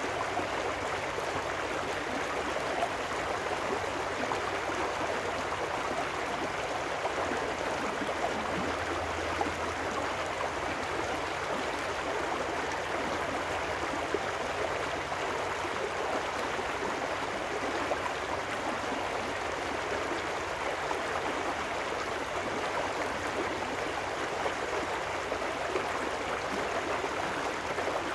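Small trout stream rushing and splashing over rocks in a riffle, a steady, unbroken water sound.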